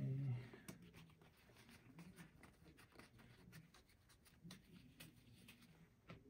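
Faint scratching and small scattered clicks of a Colt Frontier Scout .22 LR revolver's metal parts being handled and fitted during reassembly, opening with a short low thud.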